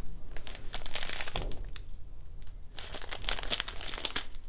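Small plastic zip-lock bags of diamond-painting drills crinkling as they are handled, in two spells with a short pause about two seconds in.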